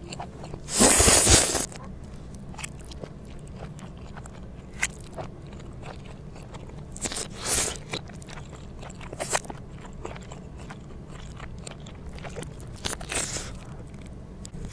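Close-miked mukbang eating sounds: slurping spicy noodles, chewing and wet mouth clicks, played in reverse. The loudest swell comes about a second in and builds to an abrupt cut-off, with shorter ones near the middle and near the end.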